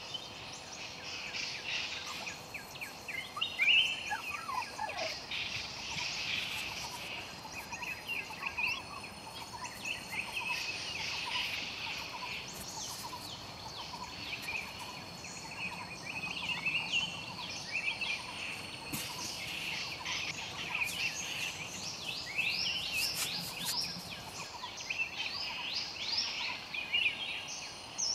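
Forest birds chirping and calling in many short, quick notes, with a louder call dropping in pitch about four seconds in. A faint steady high whine runs underneath.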